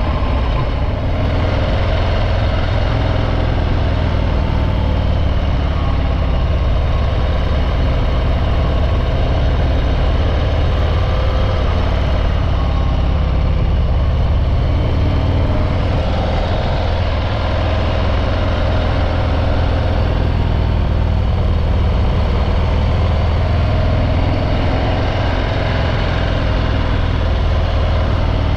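Harley-Davidson Breakout 114's Milwaukee-Eight 114 V-twin running steadily through its stock exhaust, with an even, deep engine note.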